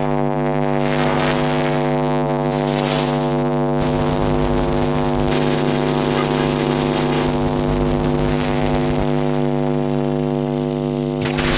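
Electric arc buzzing steadily with a deep, even hum. A hissing crackle swells and fades over it several times.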